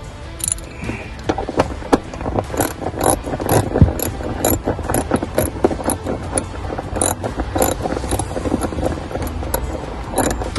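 Ratchet clicking in quick, uneven runs as a trim screw is backed out, a few clicks a second, with background music.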